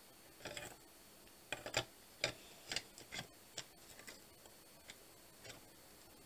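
A series of light, sharp clicks and ticks, about nine of them at uneven intervals over five seconds, over a faint steady background.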